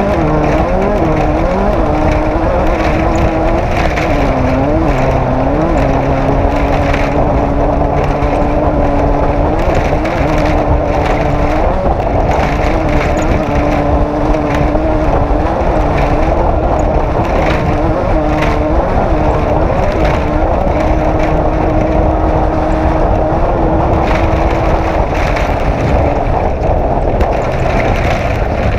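Off-road race vehicle's engine running hard, its revs dipping and rising several times in the first few seconds and again near the end and holding fairly steady in between. Under it is a constant rumble with frequent knocks and rattles from the vehicle crossing rough ground.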